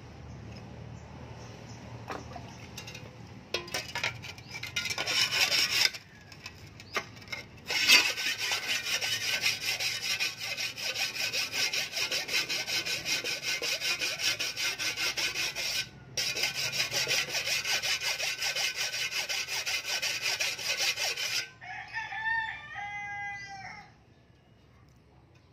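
A flat sharpening stone rubbed rapidly back and forth along the edge of a steel shovel blade, a fast rhythmic rasping that stops briefly twice. Near the end a rooster crows.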